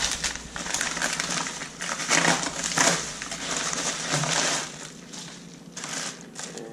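Paper shipping mailer being torn open and handled, with dense, irregular crinkling and tearing of paper that eases off about five seconds in.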